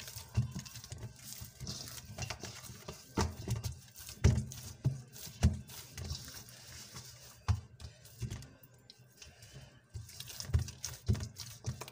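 Yeast dough being kneaded by hand in a stainless steel bowl: irregular dull thumps and squishes of the dough pressed and folded against the metal, roughly one a second.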